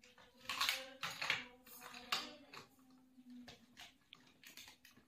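Hard plastic toy vehicles clacking and knocking together as a child handles and pushes them: an irregular run of clicks and clatters.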